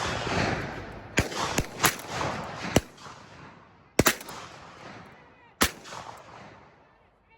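Shotguns firing at passing doves: six shots in quick succession, four within about two seconds and then two more spaced further apart. Each shot has a long rolling echo. Several hunters are shooting at once.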